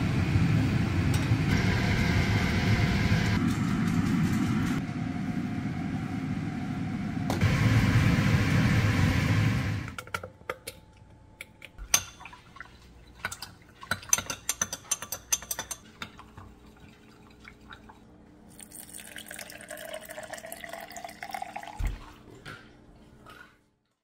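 Liquid bubbling hard in a stainless steel saucepan on a stove while a silicone spatula stirs it, a loud steady seething for about ten seconds. It stops suddenly, and is followed by light clinks and taps of containers and liquid being poured, with a rising pitch as the container fills a little before the end.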